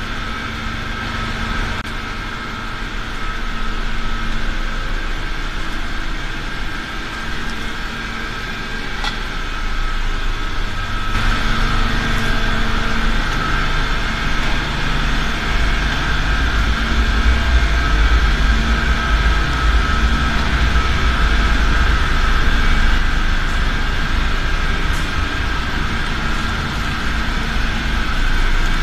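Rock core drilling rig running steadily, its drill rod turning in the rock: a continuous machine whine over a low rumble that grows heavier after about eleven seconds.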